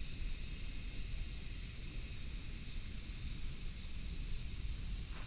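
A steady, high-pitched insect chorus over a low rumble of light wind.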